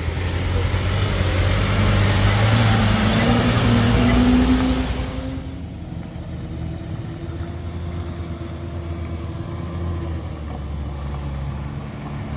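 Engine of a heavy road vehicle running loudly for about five seconds, then dropping to a quieter steady hum.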